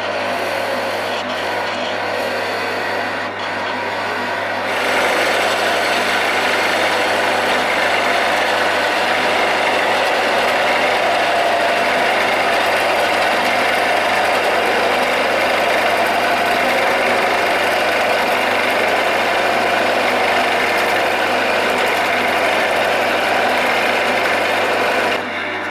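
Wood lathe running while a skew chisel cuts a taper along the spinning leg blank: a steady shaving hiss over the motor's hum, getting louder about five seconds in and dropping back just before the end.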